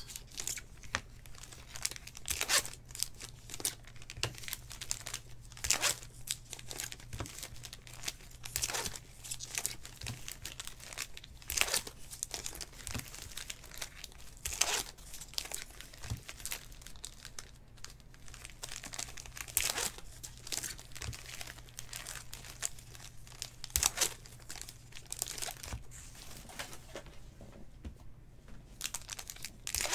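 Trading card packs being torn open and their wrappers crinkled, with cards handled between the repeated sharp crackles, over a faint steady low hum.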